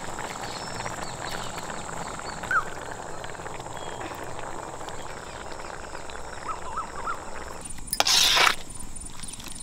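Thick curry simmering and bubbling in an iron kadai over a wood fire, with a few faint bird chirps. About 8 seconds in comes a loud, brief scrape as a perforated metal ladle stirs through the pan.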